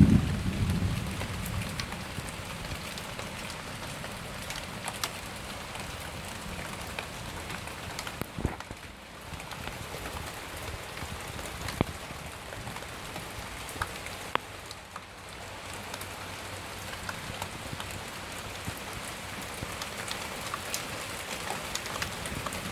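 Rain falling steadily, with sharp ticks of individual drops striking close by. The tail of a low thunder rumble dies away in the first second or so.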